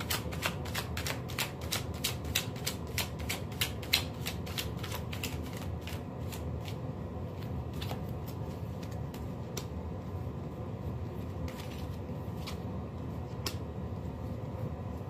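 A deck of tarot cards being shuffled by hand: a quick run of crisp card slaps, about four or five a second for the first five seconds, thinning to occasional taps after that.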